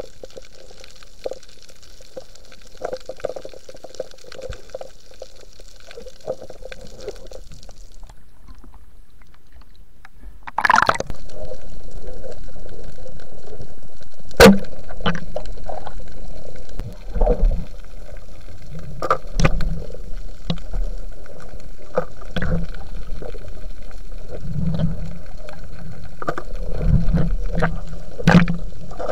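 Underwater sound picked up through a camera housing while spearfishing: a muffled wash of water movement with scattered sharp clicks and knocks. The knocks grow more frequent toward the end, with a single loud knock about halfway through.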